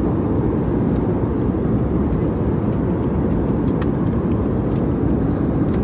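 Steady low rumble of an airliner cabin in flight, the drone of jet engines and rushing air, with a few faint ticks over it.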